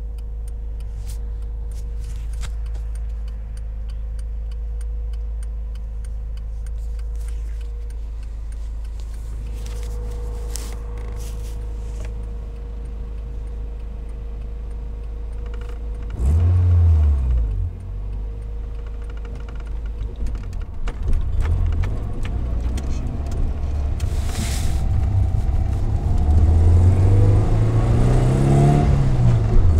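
Toyota AE86's 4A-GE twin-cam four-cylinder engine running, with a fast light ticking over the first half. It is revved briefly about halfway through, then blipped up and down near the end. The owner suspects the tick is an exhaust manifold (extractor) leak.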